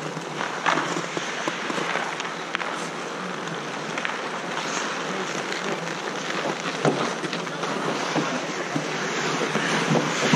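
Ice hockey game: a steady scrape of skates on ice with a few sharp clacks of stick and puck, and players' voices calling out.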